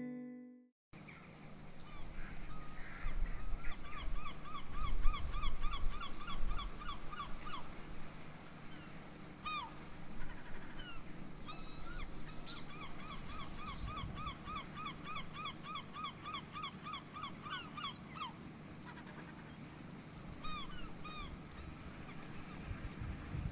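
A bird calling in long, fast series of short squeaky notes, about four a second, with a few single calls between the series, over a steady low hum.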